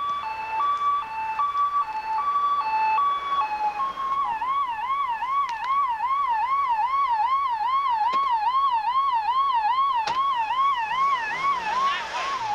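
Police-style electronic siren alternating between two tones, switching about four seconds in to a fast rising-and-falling yelp of about three sweeps a second. A rush of noise near the end as a car passes close.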